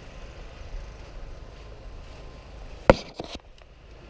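A single sharp crack about three seconds in, followed by a few fainter clicks, over a steady low rumble.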